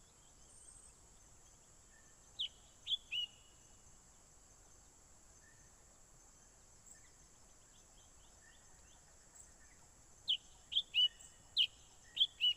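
A wild bird calling with short, sharp, downward-sliding whistled notes: three about two and a half seconds in, then a quicker run of about six near the end. A steady faint high-pitched hum runs underneath.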